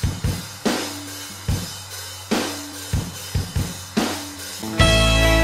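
Background music: a rock drum beat of kick and snare hits, with the full band, guitar included, coming in loudly near the end.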